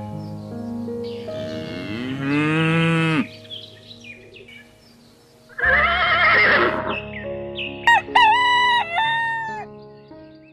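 Farm animal calls laid over steady background music: a long call that rises and falls about a second in, a louder call near six seconds, and a few short sharp calls about eight seconds in.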